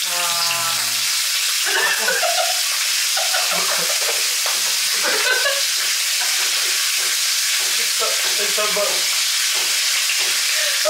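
Bacon strips sizzling in hot oil in a frying pan on a gas stove: a steady, spitting hiss as raw strips are lowered into the pan.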